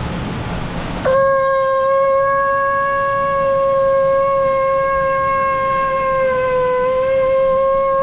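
Conch shell (shankh) blown in one long, steady blast that starts about a second in, dipping slightly in pitch a little before the end.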